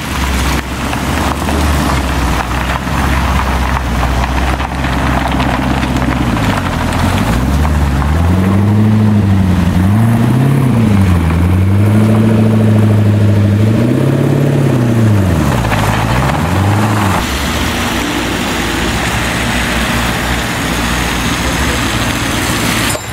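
Car engine idling, then revved several times from about seven seconds in, its pitch rising and falling with each blip of the throttle, before settling back to a steadier run.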